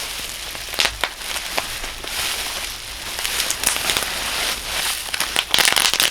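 Bubble wrap being crushed and crinkled in hands wearing thick natural-rubber gloves, with a steady crinkling and scattered sharp pops of bursting bubbles. The pops come thick and fast near the end.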